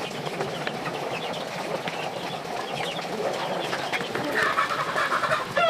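Birds chirping, many short calls overlapping, with a denser, louder cluster of calls about four seconds in.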